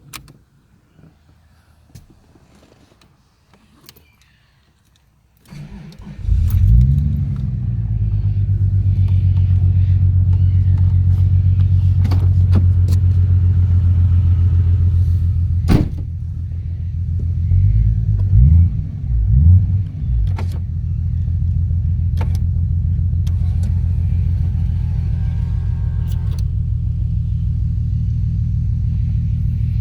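Toyota Supra turbo engine through an HKS straight-through exhaust, starting about five seconds in with a quick flare of revs, then settling to a deep, steady idle. It is blipped twice in quick succession about two-thirds of the way through, then returns to idle. The owner reports a misfire on one cylinder that new plugs, leads and coils have not cured and suspects a blocked injector.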